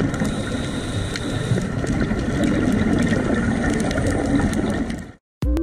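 Underwater sound around scuba divers as picked up by a dive camera: a dense, crackling, bubbling hiss with many small clicks and a few faint steady tones. It cuts off abruptly near the end.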